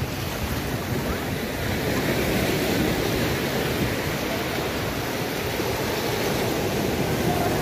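Sea surf washing in against the shore, a steady rushing noise that swells a little about two seconds in.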